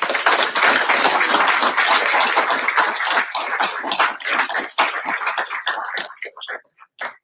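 Audience applauding: many hands clapping at once, thinning to a few scattered claps that die out near the end.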